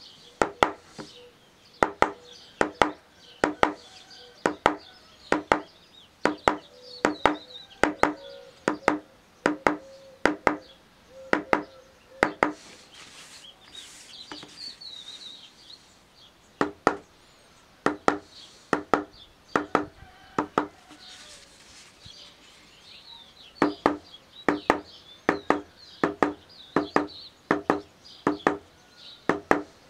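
Rubber mallet striking a metal leather stamp held on leather: a steady run of dull knocks, often in close pairs, about one to two a second. The tapping stops twice for a few seconds, in the middle and again past two-thirds through, while the stamp is moved along.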